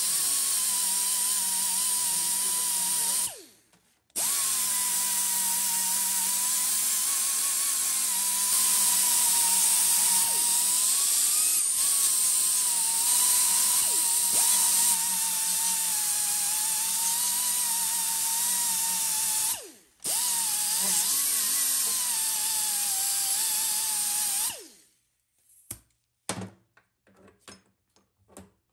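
Angle grinder with a sanding wafer pad running, grinding the leftover friction material off the steel base of a used low reverse clutch plate. A steady whine that wavers slightly in pitch as the pad is pressed on; it cuts out briefly twice and stops for good near the end, followed by a few light clicks.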